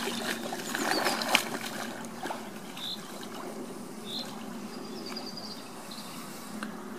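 Pond water splashing and sloshing as a person wades through it, loudest in the first couple of seconds.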